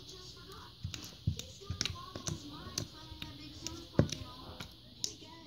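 Fingers squishing and poking blue slime in a small plastic tub, making irregular sticky clicks and pops, the loudest about four seconds in.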